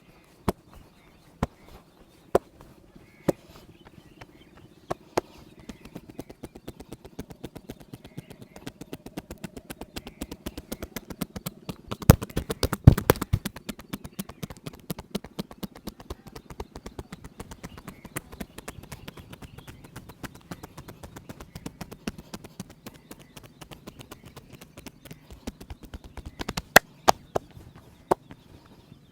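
Hands striking the body in massage percussion: a few single sharp slaps about a second apart, then a long run of quick chopping and tapping strokes, several a second, loudest about halfway through, ending with a few more single slaps.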